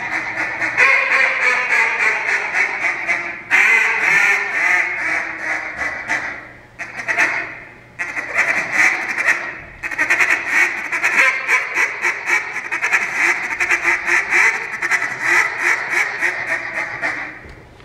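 Hand-held duck call blown in a live-duck calling routine, imitating a mallard hen: rapid runs of quacks and chatter, split by a few short pauses and fading out near the end.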